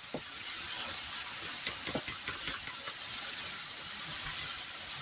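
Sliced sausage and vegetables sizzling in a hot wok: a steady frying hiss with faint scattered crackles.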